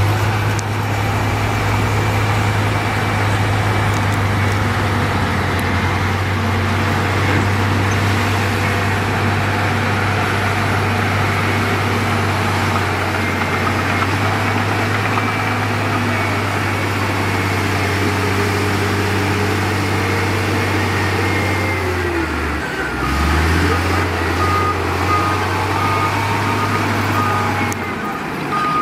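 Heavy diesel engine of earthmoving equipment running steadily, its note dropping briefly about three-quarters of the way through. A reversing alarm beeps evenly over the last few seconds.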